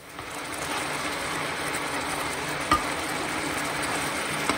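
Beer-based pork-knuckle broth boiling hard in a non-stick frying pan as it reduces to a thick glaze, a dense, even bubbling crackle that starts abruptly. A single sharp click comes about three seconds in, and a metal spoon stirs through the bubbling near the end.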